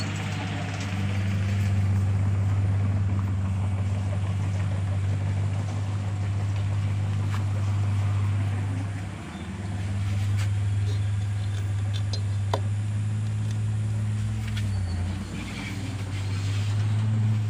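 Toyota Dyna dump truck's engine idling steadily, its low note dipping briefly twice, with a single sharp tick about two-thirds of the way through.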